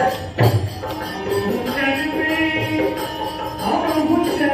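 Music with singing voices holding long, sliding notes over jingling percussion, with a loud thump about half a second in.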